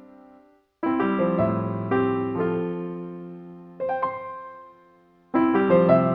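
Background piano music: slow chords that ring and fade, breaking off briefly near the start and again for a moment before a new phrase comes in near the end.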